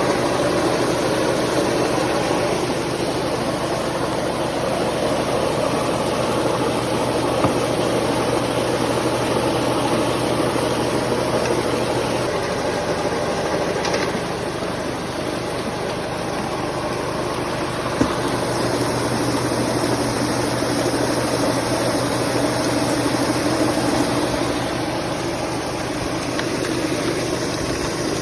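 Engine of a gold-collecting machine running steadily, with a low hum that shifts about twelve seconds in. A few short sharp clicks or knocks come over it.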